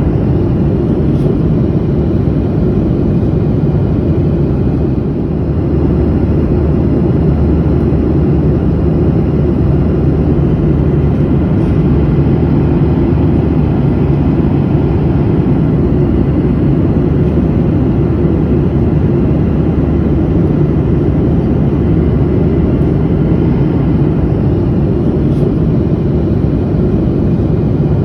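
Jet airliner in flight, heard from inside the cabin: a steady low rumble of the engines and rushing air that does not change.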